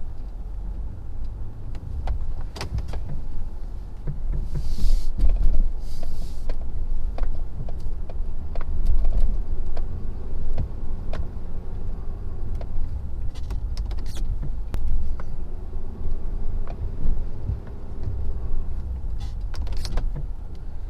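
2017 Ford F-250 Power Stroke diesel running under load while plowing, with the Boss V-plow's electric hydraulic pump whining in short spells as the blade is moved. Scattered clicks and knocks throughout, and two brief hisses about five and six seconds in.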